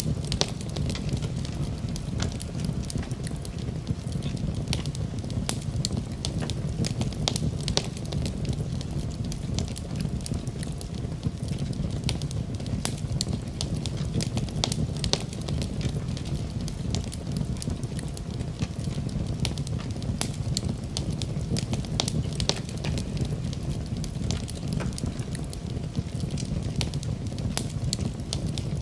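Wood fire crackling in a fireplace, with frequent irregular sharp pops and snaps over a steady low rumble.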